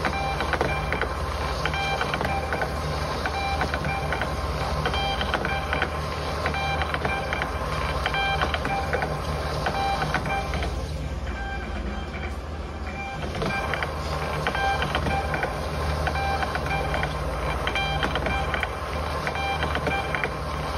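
Thermal label printer running continuously as it feeds out a strip of shipping labels: a steady mechanical whir under a low hum, with pitched motor whines that switch on and off, easing briefly about eleven seconds in.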